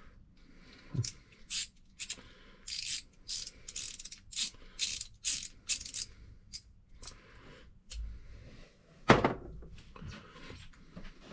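Ratchet clicking in short strokes, about two a second, as a small Phillips screw is backed out of a faucet stem to free its worn rubber seat washer. One loud knock near the end.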